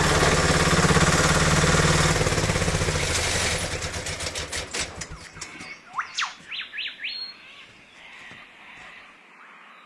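A mini excavator's engine running steadily, then switched off about three and a half seconds in, its firing pulses slowing and dying away over about two seconds. A few short bird chirps follow, then quiet outdoor background.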